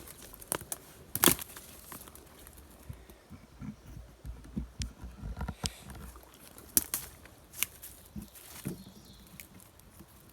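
Someone moving on foot through brush: irregular crackles and snaps of twigs and dry vegetation with dull, low thuds of steps, the sharpest snap about a second in.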